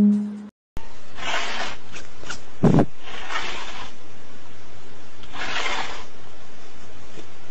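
Cat hissing in short bursts, four times about two seconds apart, with one dull thump about two and a half seconds in, over a steady low hum.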